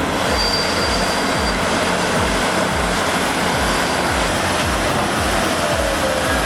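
A large diesel machine running steadily, mixed with background music that carries a regular low beat of about two thumps a second.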